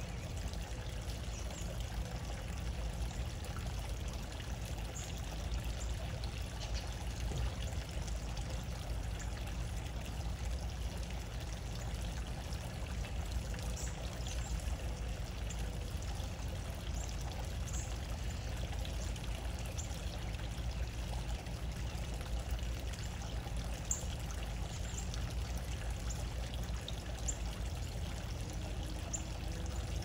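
A steady rushing noise with a strong low rumble, with faint short high chirps scattered through it.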